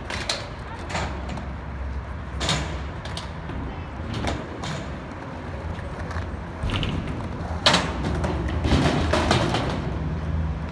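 Skateboard wheels rolling over concrete with a steady low rumble, broken by sharp clacks of boards striking the ground and ramps. The loudest clack comes near eight seconds in, with a quick run of several more just after.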